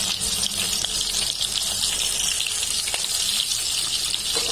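Battered small fish sizzling steadily in hot oil in a wok, the second frying that makes them crisp.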